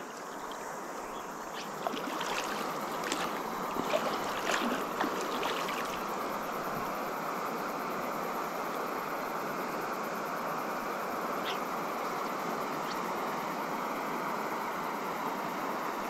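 Steady rushing of swift river water. A few faint knocks and ticks come in the first six seconds or so.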